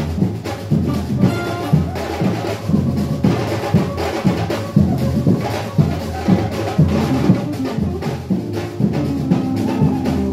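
Live Brazilian batucada: hand-held drums beat out a driving, regular rhythm, with the rest of the band sounding underneath.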